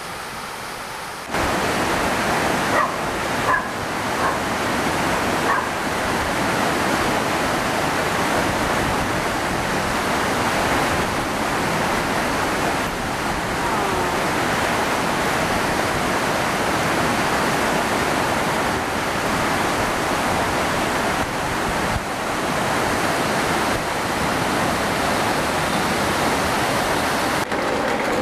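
Steady rushing of water that starts abruptly about a second in, with a dog barking a few times a few seconds later.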